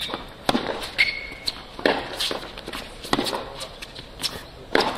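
Tennis ball struck by rackets and bouncing on a hard court during a rally: sharp pops about every second, with a short squeak about a second in.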